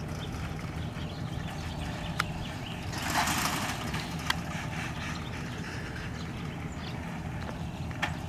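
A vehicle engine idling steadily, with a brief rush of noise about three seconds in and a few faint sharp ticks.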